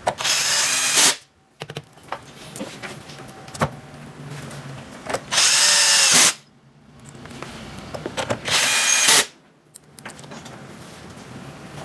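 Cordless drill turning rack screws in a flight case's rack rails. It runs in three short bursts of about a second each: at the start, about five and a half seconds in, and about eight and a half seconds in. The motor whine rises and falls with each run, and there are small handling clicks between them.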